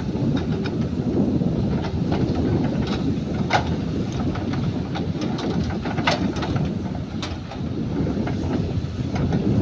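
Heavy machinery engine running steadily with a low rumble, with scattered sharp knocks and clanks, the loudest about a third and two thirds of the way through.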